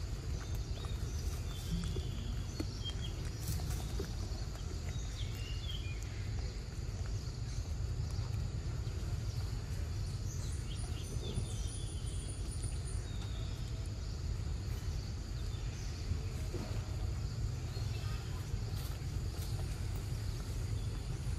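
Forest ambience: a steady low rumble with faint, scattered bird chirps over it.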